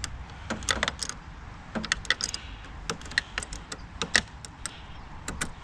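Irregular sharp metallic clicks and taps of a 10 mm hand tool working the nut on a car battery's ground terminal, some in quick clusters of two or three.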